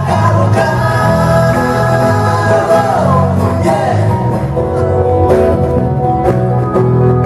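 A live acoustic band playing a song: a man sings over strummed acoustic guitar, keyboard and a steady bass line.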